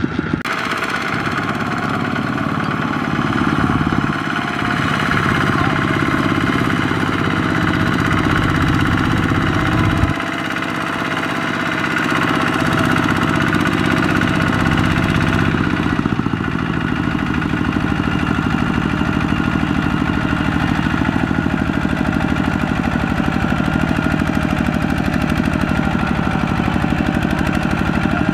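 Kubota walking tractor's single-cylinder diesel engine chugging steadily as it pulls a trailer loaded with rice sacks through muddy field stubble. Its pace and loudness shift a few times as the load changes.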